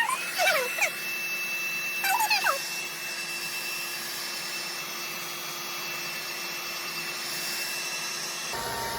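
Blow dryer running steadily with a high whine, drying freshly laid wig glue until it turns clear and tacky. A dog gives two short falling whimpers in the first couple of seconds, and the dryer's sound changes shortly before the end.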